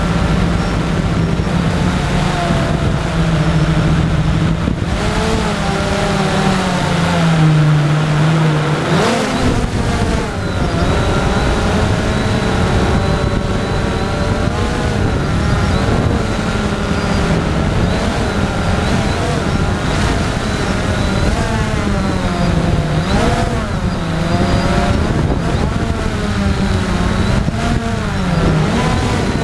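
Storm X3 drone's electric motors and propellers whining, heard through its onboard camera, the pitch sliding up and down as the throttle changes and jumping higher about a third of the way in.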